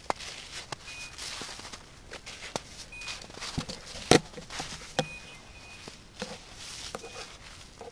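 Footsteps crunching through snow in an irregular walking rhythm, with a single sharp knock a little past the middle.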